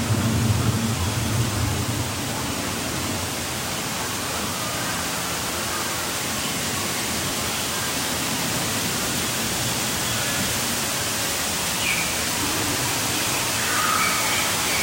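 Steady rushing hiss of falling water from a rainforest set's waterfall or rain effect, with a few faint short high calls near the end.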